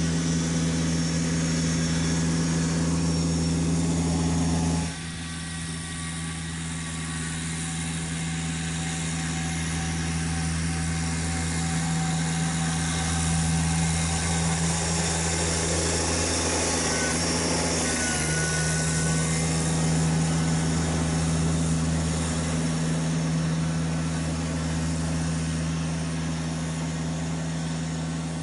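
Kubota BX1870 sub-compact tractor's three-cylinder diesel engine running at a steady speed while plowing snow. The sound drops abruptly in loudness about five seconds in, then carries on steadily.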